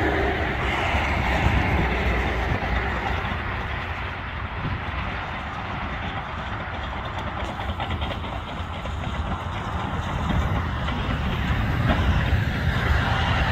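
CAT D5 crawler dozer's diesel engine running and its steel tracks clattering as it pushes a windrow of dirt, getting louder as it comes close in the last few seconds; a smooth-drum road roller's engine runs alongside.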